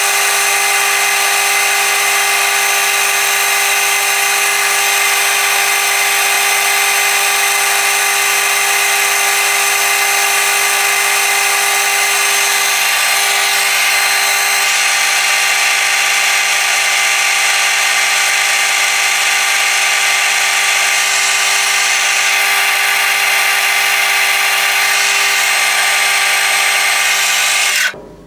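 Metal lathe running steadily, with a whine from its motor and gearing over a steady mechanical noise; it cuts off near the end.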